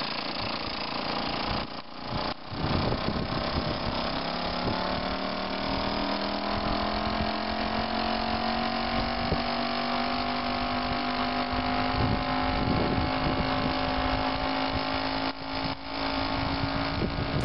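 VéloSoleX moped's single-cylinder two-stroke engine running under way, a steady sputtering buzz whose pitch rises slowly as the moped gains speed. The sound briefly drops out about two seconds in and again near the end.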